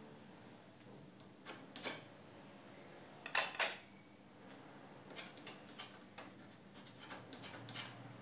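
Metal painting knife clinking and tapping as paint is picked up and worked. Scattered sharp clicks, the loudest a close pair about three and a half seconds in, then a run of lighter taps.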